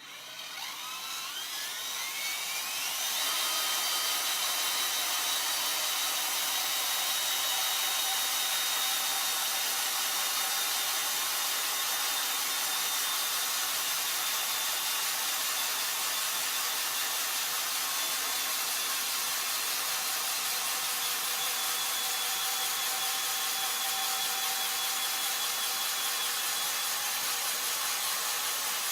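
Metabo BS 18 LTX cordless drill-driver's motor spinning up over about three seconds, its whine rising in pitch, then running steadily at high speed.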